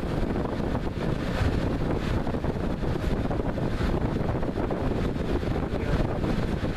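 2004 General Electric box fan, model 106620, running and blowing hard, its airflow buffeting the microphone as a steady rushing noise.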